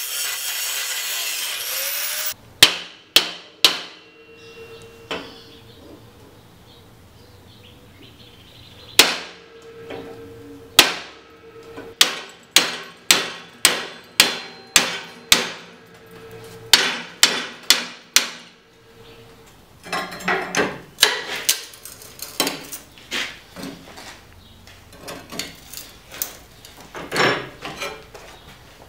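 An angle grinder cuts steel for about two seconds, then a hammer strikes steel clamped in a bench vise again and again, some blows leaving a ringing tone. The blows come roughly two a second through the middle, then quicker and lighter near the end, as the mild-steel can is knocked off the forge-welded ball-bearing billet.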